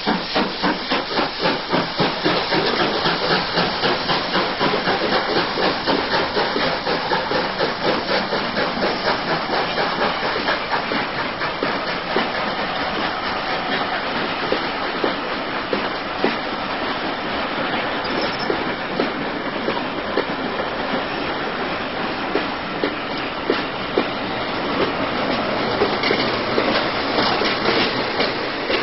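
Steam-hauled train running past: quick rhythmic chuffs from the steam locomotives in the first seconds, then a steady rumble of coaches rolling by with wheels clicking over rail joints and a hiss of steam.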